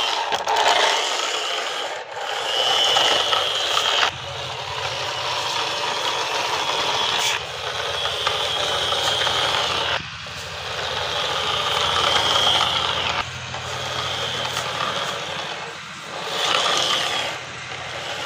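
Plastic toy bus pushed by hand along a concrete ledge, its plastic wheels rolling with a continuous scraping rattle that swells and drops several times.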